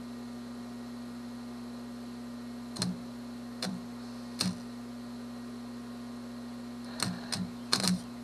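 Short crackling bursts of a small flux-core MIG welder's arc striking on a galvanized steel tube: three brief strikes about a second apart, then a quick cluster of strikes near the end, over a steady hum. These are weld attempts that fail to join the two pipes, which the welder puts down to too big a gap.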